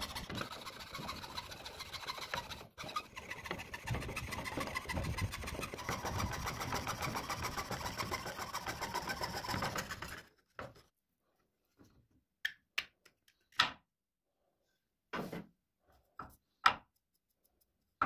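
Fine-bladed saw cutting through mesquite wood, a steady rasp that breaks off briefly once and stops about ten seconds in. After that come a few short knocks and taps as the wood is handled.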